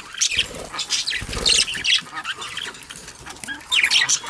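Budgies chattering in rapid, high chirps and warbles. A brief low rustle comes about a second in, likely wings fluttering in wet grass.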